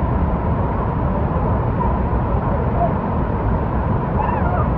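Horseshoe Falls roaring: a steady, deep rumble of falling water.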